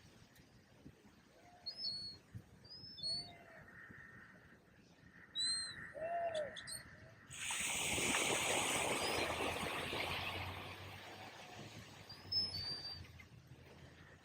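Birds calling in short, scattered chirps on a beach, while a wave breaks and washes up about seven seconds in, then fades out over several seconds.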